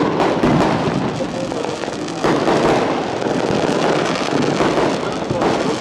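Fireworks going off in a dense, continuous barrage of rapid crackling pops, growing louder about two seconds in.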